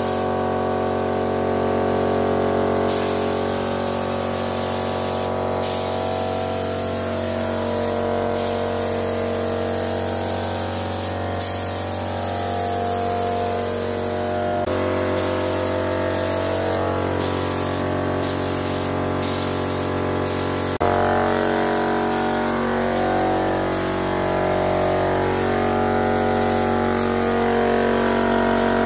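Gravity-feed paint spray gun hissing as it sprays paint, the hiss cutting off briefly again and again as the trigger is let go. Background music with held notes plays underneath.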